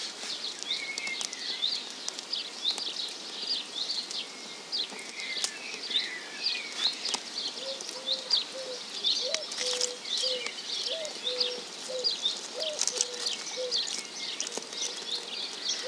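Small songbirds chirping throughout with short high calls, and from about eight seconds in a dove cooing a low repeated phrase. A few sharp crackles from the freshly lit campfire.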